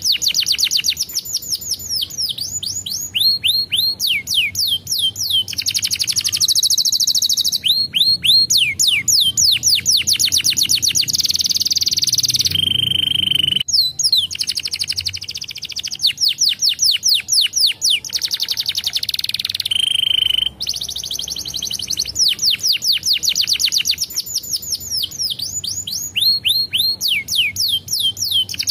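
Domestic canary singing a long, continuous song: fast trills of rapidly repeated down-slurred notes that change from one type to the next, broken by a couple of short held whistles.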